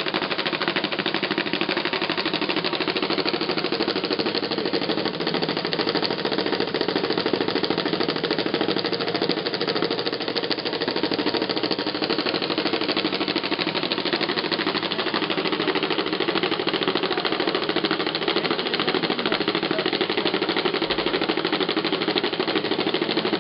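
Braille embosser punching dots into fanfold tractor-feed paper: a fast, continuous mechanical hammering rattle.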